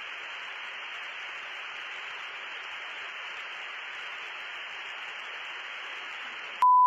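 Steady radio static hiss on an aircraft radio channel. Near the end a loud, steady high beep cuts in and blanks the hiss: a censor bleep over a word.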